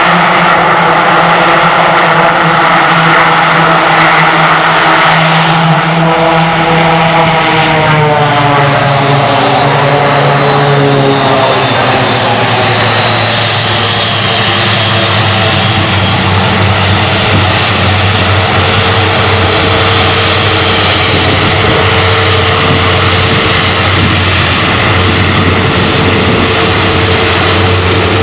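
Short SC-7 Skyvan's twin turboprop engines running on the ground with a high turbine whine. The engine note falls about six to twelve seconds in, then holds steady at a lower pitch.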